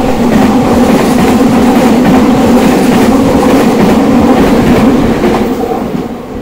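Six-car Meitetsu electric train (a 9500 series coupled to a 3100 series) passing through a station platform non-stop as an express. The sound comes in suddenly and loud, stays loud for about five seconds, and fades near the end as the train leaves.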